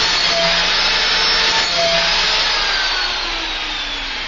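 Makita 4-inch angle grinder with a sandpaper pad running at speed, grinding a lawnmower blade's edge to sharpen it. About two and a half seconds in it is switched off and its whine falls steadily in pitch as the disc spins down.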